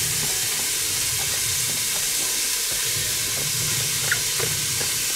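Diced onion and other vegetables sizzling steadily as they fry in a hot stainless steel pot, with light scraping as more are pushed in from a plastic colander. A small sharp click about four seconds in.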